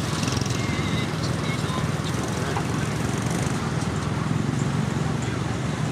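Heavy truck diesel engine running steadily with a low, even drone.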